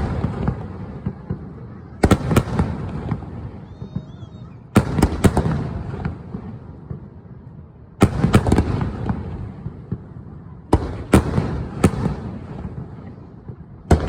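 Aerial fireworks shells bursting, one about every three seconds: each is a sharp bang followed by a few quick crackling reports and a long rumbling decay. Four bursts come in turn, with a fifth right at the end.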